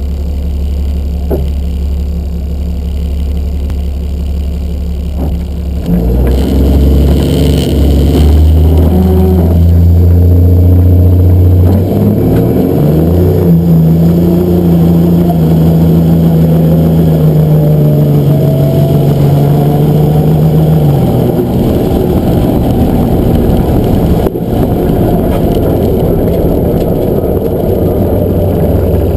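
Diesel drag-racing pickup's engine heard from inside the cab. It runs steadily at low revs, then about six seconds in it opens to full throttle for a launch. It pulls hard down the strip, its pitch climbing and stepping with the gear changes, and stays loud to the end.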